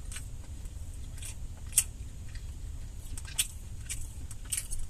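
Close-up chewing and biting of a sausage and bacon croissant breakfast sandwich, with a few sharp mouth clicks and smacks, over a steady low hum.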